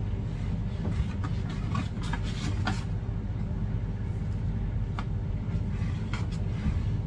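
A steady low machine hum, with light clicks and scrapes from a metal spoon as minced chicken filling is scooped onto wonton wrappers in a foam box.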